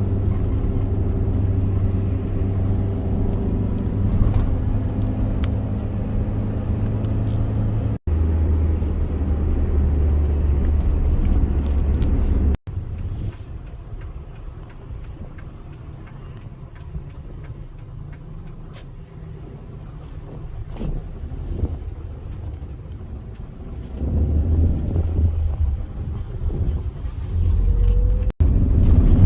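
Low vehicle rumble with a steady engine hum, in several short clips joined by hard cuts. It cuts off abruptly about eight and about twelve seconds in, drops to a quieter rumble, then returns loud near the end.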